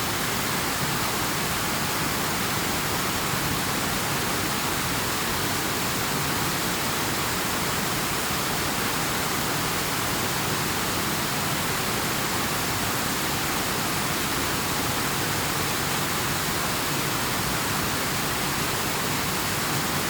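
Steady, even hiss of running water, as from rain falling and a flowing river, with no change in level.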